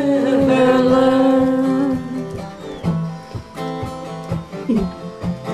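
Group singing holding the last sung note of a folk-song line over acoustic guitar. The voices stop about two seconds in, and the guitar carries on playing alone.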